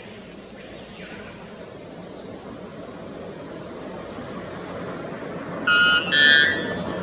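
White bellbird giving its loud two-note call near the end: two short ringing notes in quick succession, the second a little higher and louder, over a steady background hiss.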